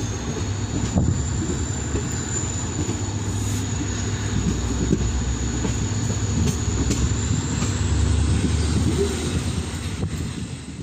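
WDP-4D diesel-electric locomotive's EMD two-stroke V16 engine humming under power as the train pulls away, with a steady high whine above it that rises slightly about eight seconds in.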